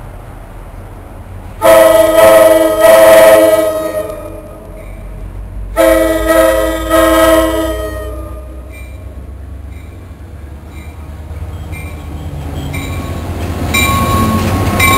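Metro-North GP40FH-2 diesel locomotive's multi-chime air horn, several notes sounding together, blown as four blasts in two close pairs, about 1.5 s and 6 s in: a grade-crossing signal as the train approaches the station. Near the end the locomotive's engine and wheels rumble louder as it rolls into the platform.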